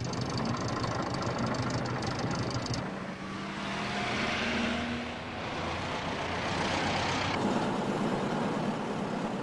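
City street traffic, with motor vehicles running. It cuts in abruptly and shifts in character about three seconds in and again about seven seconds in.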